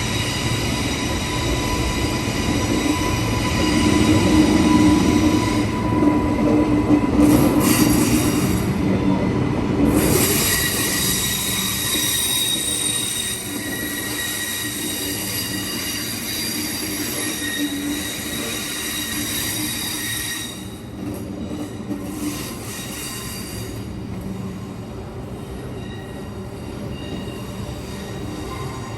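Queensland Rail electric suburban train moving along the platform, its wheels squealing in several steady high-pitched tones over a rumble. The train is loudest in the first ten seconds, then slightly quieter.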